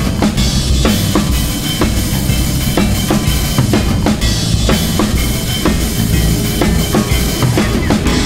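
Background music with a steady drum-kit beat, about two hits a second.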